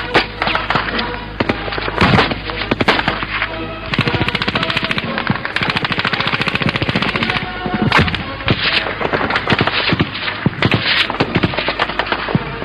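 Gunfire in combat: bursts of automatic machine-gun fire and scattered single shots, many sharp cracks in quick succession over a continuous background.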